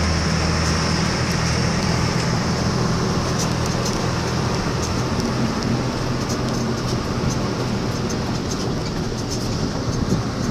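Engine and road noise heard from inside a moving vehicle: a steady low engine hum under a haze of tyre and wind noise, with light clicking rattles in the second half.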